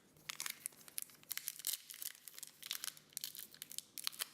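Foil wrapper of a Pokémon trading-card booster pack crinkling and tearing as it is opened by hand, a run of irregular crackles.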